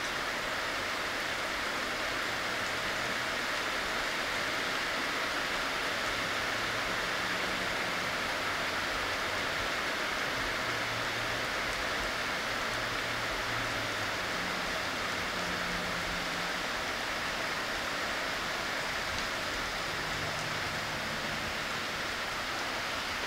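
Steady rain falling on a wet parking lot: an even hiss of rainfall with no individual drops standing out.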